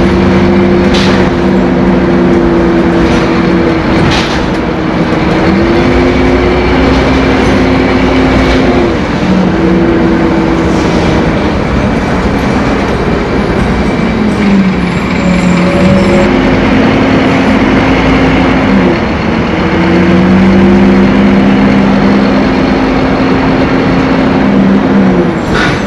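Scania K-270 five-cylinder turbo diesel bus engine running loud. Its steady drone drops and climbs again in pitch several times, about every three to five seconds.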